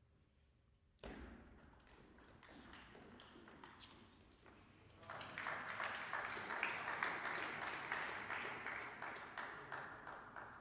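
Table tennis ball clicking on bats and table during a rally, then spectators clapping densely for about five seconds once the point ends, fading near the end.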